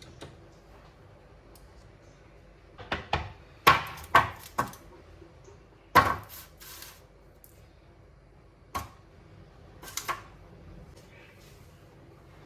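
Kitchenware being handled and set down: a quick run of sharp knocks and clacks, a loud single one about halfway, then two more single knocks later.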